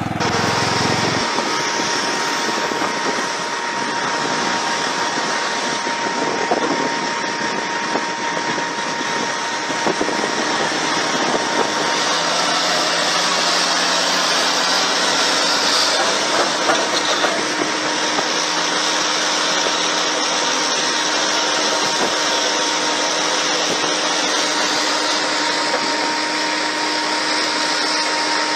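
A Caterpillar 740B articulated dump truck's diesel engine running: a steady, dense mechanical noise with a faint constant whine through it. For about the first second, the small engine of a tiny tracked crawler is heard instead.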